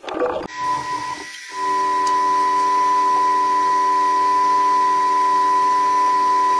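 Microwave oven door shutting, then the oven starting and running with a steady electrical hum and whine that grows louder about a second and a half in.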